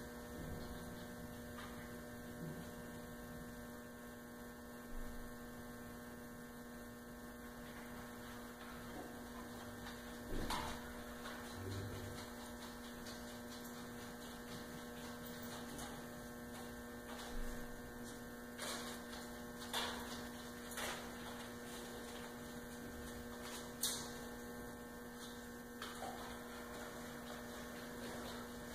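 Steady electrical mains hum, with a few brief soft taps and knocks scattered through it.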